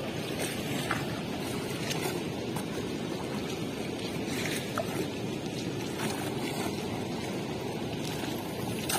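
Small waves lapping and washing against the shore in a steady wash of water, with a few faint clicks.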